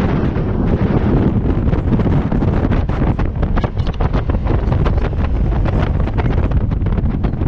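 Heavy wind buffeting the microphone aboard a small open boat running fast, over the steady drone of its 75 hp outboard motor and rushing, splashing water.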